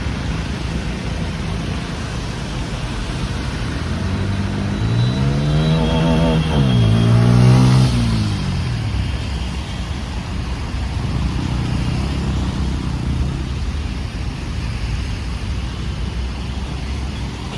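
Bajaj Pulsar N160 motorcycle engine running on the move over a steady hiss of wind and wet road. From about four and a half seconds in it revs up, dips, revs up again and then drops back to a steady run.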